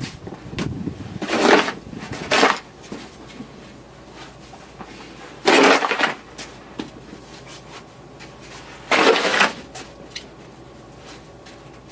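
A snow shovel scraping through snow, in four short strokes, two close together near the start, then one in the middle and one near the end, with faint scuffs between.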